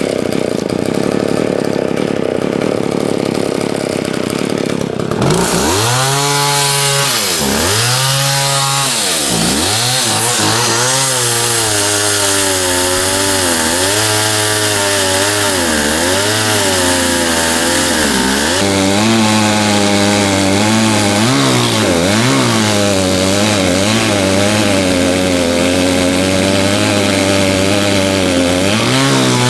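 An old McCulloch two-stroke chainsaw running right after a carburetor adjustment. About five seconds in, its engine note comes through clearly and swings down and up in pitch several times as engine speed changes. It then runs on with a wavering pitch.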